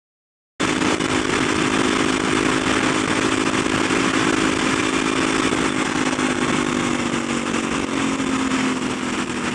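Kawasaki supermoto motorcycle engine running steadily under way, cutting in abruptly about half a second in, with wind rushing over the helmet-mounted microphone. The engine note sags slightly in pitch toward the end.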